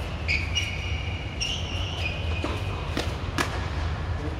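Tennis rally on an indoor hard court: sneakers squeak on the court in the first half, then comes a quick series of sharp ball hits and bounces, the loudest about three and a half seconds in, over a steady low hum.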